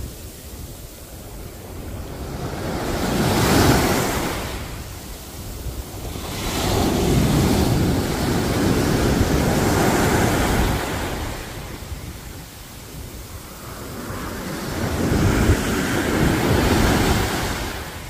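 Small sea waves breaking and washing up over sand: three surges of rushing, foaming water, each swelling up and dying away over a few seconds, the first about three seconds in, the second the longest through the middle, the last near the end.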